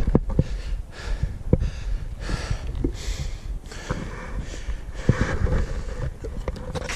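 Hard, fast breathing of an exerted shooter close to a chest-mounted microphone, with scattered low knocks and rustle of gear and footsteps.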